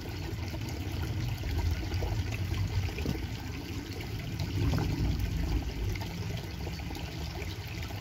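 Shallow stream trickling over stones, with a low rumble of wind on the microphone.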